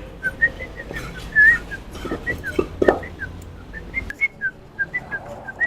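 A rapid series of short, high whistle-like chirps, about four a second, alternating between two close pitches, with a few soft knocks about two to three seconds in.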